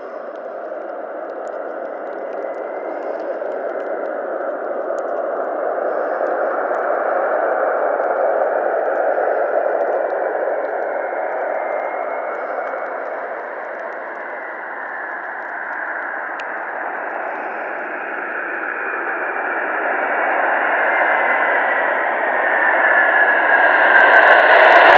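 General Electric CF34 turbofans of an Embraer E-Jet landing: a steady rushing jet noise that swells as the aircraft comes in, eases, then builds again, with a faint whine falling slowly in pitch. Over the last few seconds the engines grow much louder as reverse thrust is applied on the landing roll.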